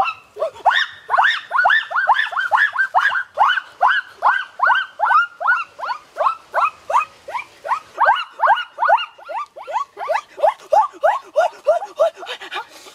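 An animal giving a rapid, unbroken series of short yelping calls, each rising and then falling in pitch, about three a second; they stop abruptly at the very end.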